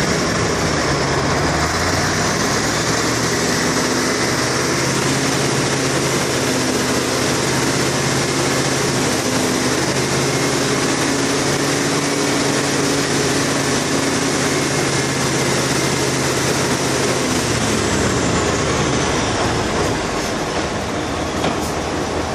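Heavy engine running at steady raised speed with a faint high whine over it; both ease off about three-quarters of the way through.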